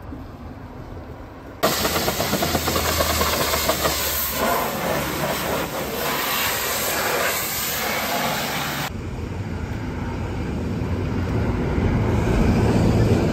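High-pressure washer jet spraying water onto a truck: a loud, even hiss that starts abruptly about a second and a half in and cuts off suddenly about seven seconds later, followed by a quieter steady rumble with a low hum.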